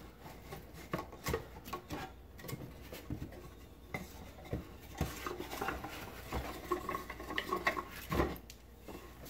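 Wooden beehive frame parts knocking and rubbing against each other and against a wooden frame jig as it is tilted and turned over by hand: irregular light clicks and knocks, with one louder knock about eight seconds in.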